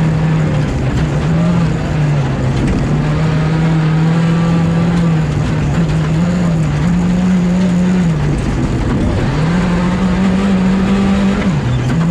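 Skoda Fabia R5 rally car's turbocharged four-cylinder engine, heard from inside the cockpit at full stage pace. Its pitch holds, dips and climbs again several times as the driver lifts, brakes and changes gear.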